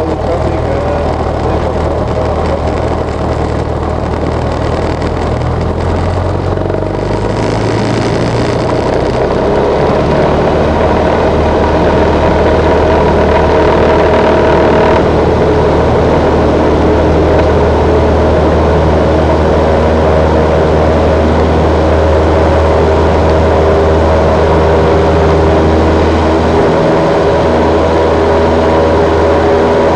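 Single-engine light plane's piston engine and propeller heard from inside the cockpit, at low power at first. The throttle is opened about a quarter of the way in, and the engine rises to takeoff power, then runs loud and steady through the takeoff roll.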